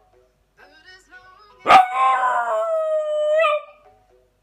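A Yorkshire terrier howling along to music: one long pitched howl of about two seconds that starts sharply about one and a half seconds in, sliding slightly down with a short upturn at the end. Faint music is heard in the quiet before it.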